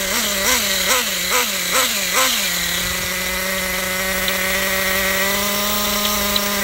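Kyosho nitro RC truggy's small glow engine running: throttle blipped in quick short revs about twice a second for the first two seconds, then settling into a steady idle. The engine is new and not yet broken in, still stiff.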